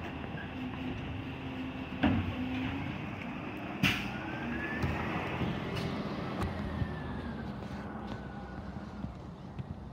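International garbage truck with a Labrie Automizer side-loader body running as it pulls away, its engine a steady low drone. Two sharp knocks come about two and four seconds in, the second the loudest, and a faint whine rises and falls through the middle.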